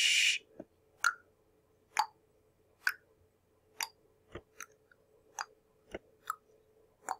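A short burst of hiss, then a run of sharp, light clicks and taps at irregular intervals, about one a second.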